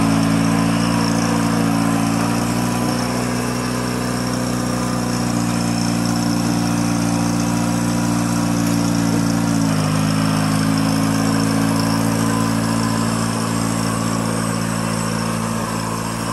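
Satoh S650G tractor's gasoline engine running at a steady speed as the tractor drives slowly; the engine note drops a little about ten seconds in.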